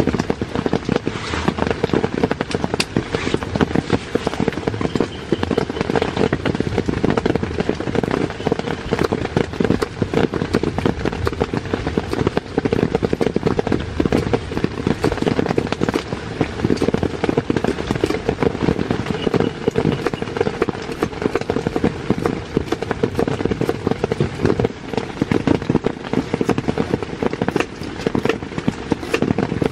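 Heavy rain drumming on a tent, a dense, steady crackle of countless drops.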